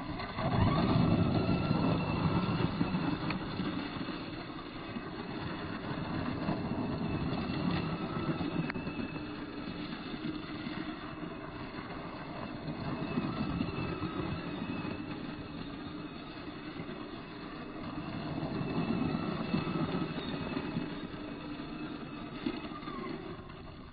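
Team Associated Trophy Rat RC truck spinning its tyres and spraying gravel as it drives in circles, its electric motor whining under the crunch of stones. The sound swells and fades as the truck comes round: loudest about a second in, and again near thirteen and nineteen seconds.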